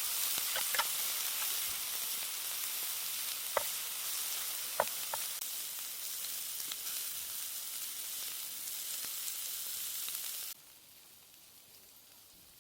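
Food sizzling in a hot frying pan, with a few sharp clicks of a utensil against the pan. The sizzling cuts off suddenly about ten and a half seconds in.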